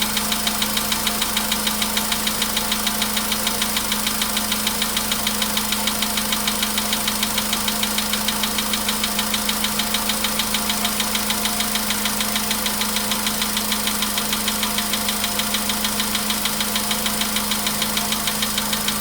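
Volkswagen Polo Sedan engine idling after a cold start with a fast, even knock over a steady hum. The owner says the knock is getting worse as the car nears 100,000 km.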